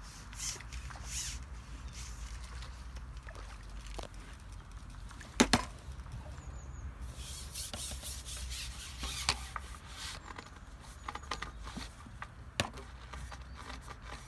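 A few sharp knocks, the loudest about five seconds in and another near the end, with rustling in the middle, over a low steady rumble.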